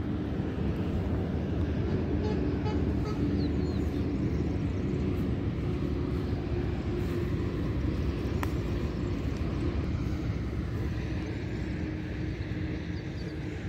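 Steady low outdoor rumble with a faint steady hum underneath, and a single faint click about eight and a half seconds in.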